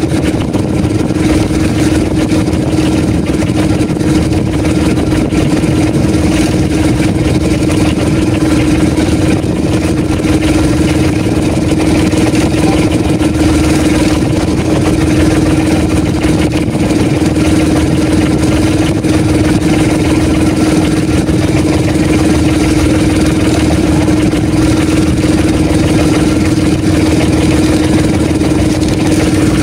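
Outrigger fishing boat's engine running steadily at one even pitch.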